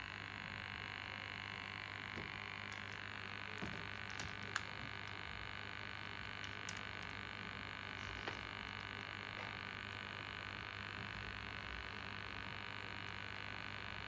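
Steady low electrical hum and hiss with a few light clicks of multimeter probes being handled and touched to the board, bunched around four seconds in, again near seven seconds and once more near eight seconds.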